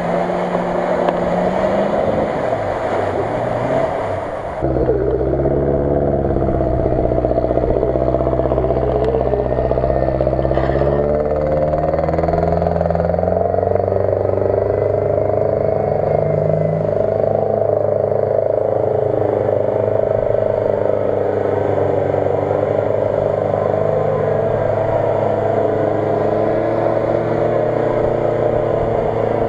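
Off-road 4x4 engine running under load in deep mud and water, its revs holding for stretches and then shifting. About four and a half seconds in the engine sound abruptly gets louder and steadier.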